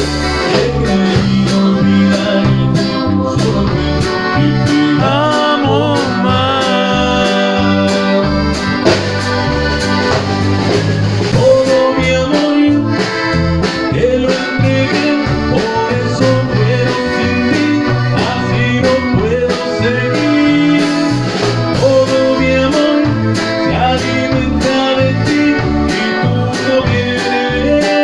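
Live norteño music: a man sings in Spanish into a microphone over a button accordion, with plucked strings and a steady beat.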